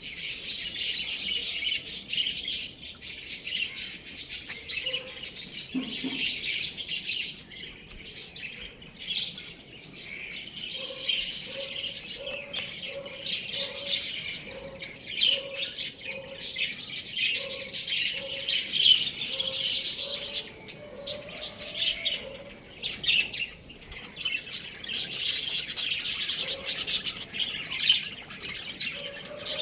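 Many small birds chirping and chattering continuously in high, rapid notes. Through the middle a lower bird call repeats in short notes about twice a second.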